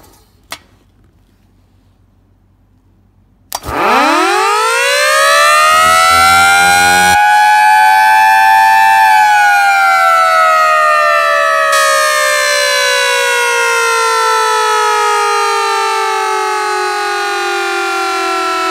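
Salvaged Federal Model 78 dual-tone siren: after a few quiet seconds and a single click, it starts about three and a half seconds in and winds up quickly, two tones rising together to a peak. It then coasts down freely in a long, slow falling wail.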